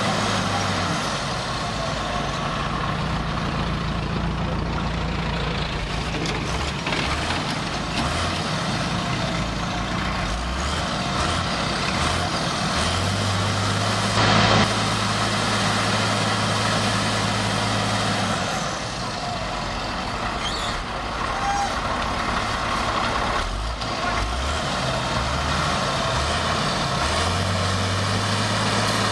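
Heavy diesel earthmoving machinery, a bulldozer and other machines, running steadily, with the engine note stepping up and down several times. A brief loud hiss comes about halfway through.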